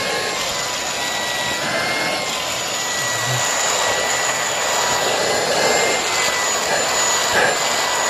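Dibea D008Pro cordless handheld vacuum cleaner running steadily in boost (max) mode, its crevice nozzle sucking at a rug: a loud rush of air with a steady high whine from the brushless motor.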